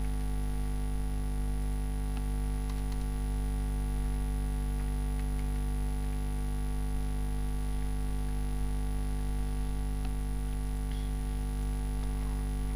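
Steady low electrical mains hum carried on the recording, with a few faint clicks of computer keys as figures are typed.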